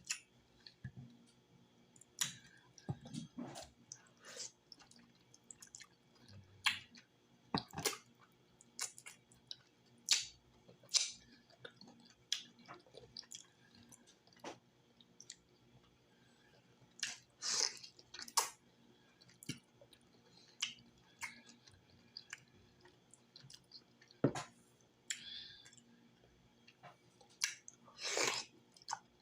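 Close-up eating sounds of cooked cow foot: a person chewing the gelatinous meat and sucking at the bones, with irregular wet smacks and clicks.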